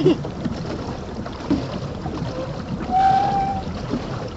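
Pedal boat's paddle wheel churning the pond water in a steady low wash, with a brief steady whistle-like tone about three seconds in.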